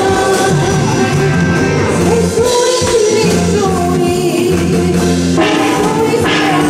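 A woman singing live into a handheld microphone over instrumental accompaniment with a steady bass line.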